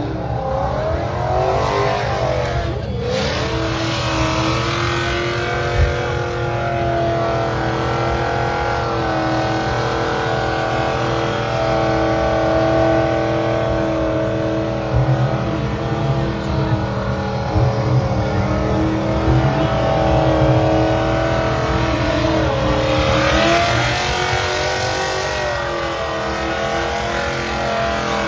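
A car engine held at high revs, its pitch wavering, dipping and climbing again about 23 seconds in, as the car spins its tyres in a smoking burnout.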